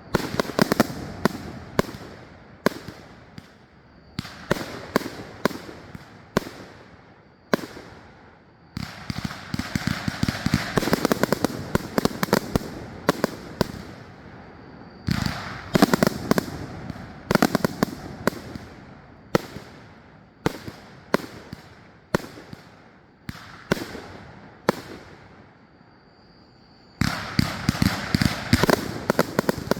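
150-shot consumer firework cake (Pyro Fortune 'Paralysis') firing: rapid volleys of launch thumps and crackling aerial breaks in waves with short lulls between them, picking up sharply again near the end.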